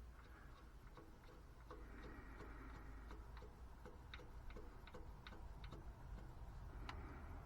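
Hand ratchet wrench clicking in short runs of light ticks, about two to three a second, as the starter bolts are tightened.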